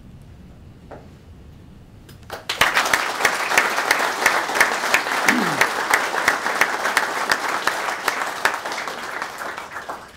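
Audience applauding in a room. The clapping starts suddenly about two and a half seconds in and fades away near the end.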